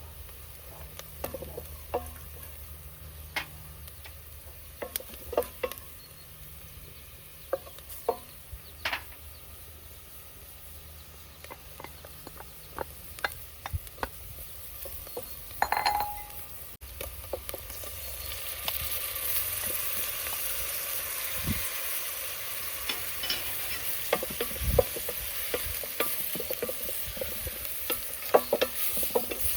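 Food frying in a pan, with a utensil stirring and clicking against it. The sizzling grows louder and steadier from about two-thirds of the way in.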